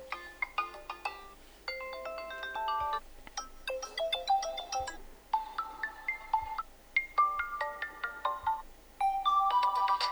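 Infinix Hot 20i ringtones being previewed one after another. About six short electronic melodies, each cut off after a second or two as the next one starts.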